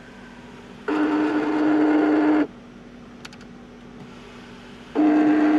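Audi A8 sunroof wind deflector adjustment motor running twice, each time a steady buzzing grind of about a second and a half, the second run starting near the end. This is the sunroof noise the owner puts down to a tolerance issue in the deflector motor.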